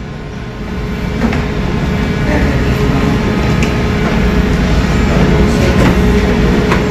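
Steady low rumble of the ship's machinery with a constant hum running through it, growing louder over the first few seconds, with a few faint knocks.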